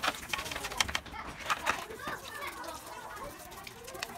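Water poured from a plastic basin splashing and pattering onto a motorcycle's frame under the seat, rinsing off degreaser. The splashes come thickest in the first two seconds, then thin out.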